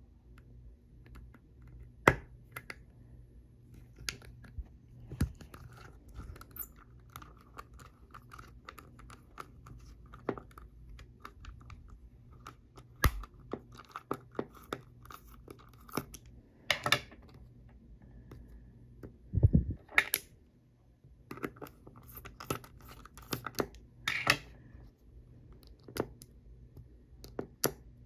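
A precision screwdriver tip pokes, scrapes and punches through the paper label on a hard drive's metal top cover, giving scattered sharp clicks and short scratchy tearing sounds. Near the end the label is picked at by hand.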